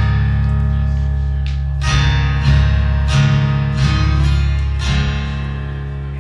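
Solo acoustic guitar playing an instrumental tune: chords struck roughly every half second to a second over deep sustained bass notes, then left ringing out after about five seconds.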